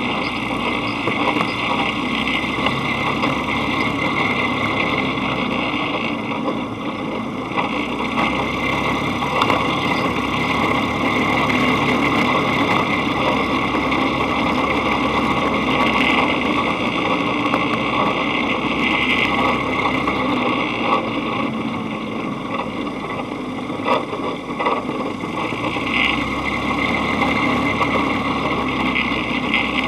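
Dune buggy engine running steadily while the buggy drives along sand, heard from a camera mounted on the buggy's front frame, with a dense clattering rattle over the engine and a few sharper knocks.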